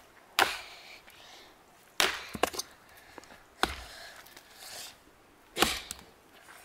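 Axe chopping dry dead wood: four sharp strikes, roughly one every one and a half to two seconds, with a few small cracks of splintering wood after the second.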